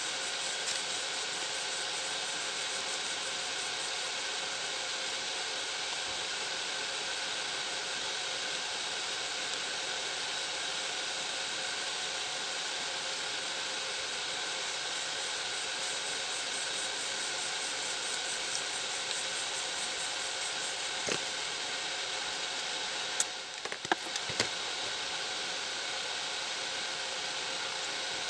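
Steady background hiss, with a few light clicks and taps from plastic grinder-housing parts being handled about three quarters of the way through.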